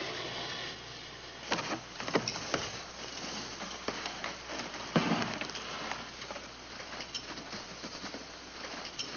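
A door and a breakfast tray being handled: a few scattered knocks and clinks, the loudest about five seconds in, over a steady hiss.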